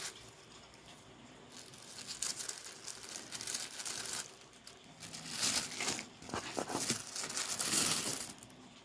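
Packaging being unwrapped by hand: paper or plastic crinkling and rustling in two long stretches, the louder near the end.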